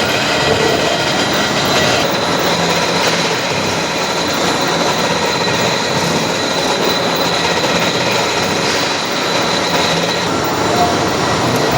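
Boring machine running and cutting metal: a steady, loud machining noise with a thin high whine over it.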